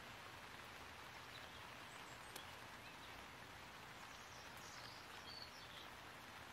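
Near silence: faint outdoor background hiss, with a few faint bird chirps in the middle and toward the end and a single faint tick about two and a half seconds in.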